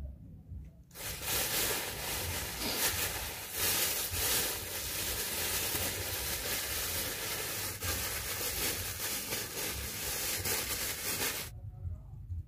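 Loud, even rustling hiss of cloth rubbing over the phone's microphone while the phone is handled and moved. It starts suddenly about a second in and cuts off suddenly about a second before the end.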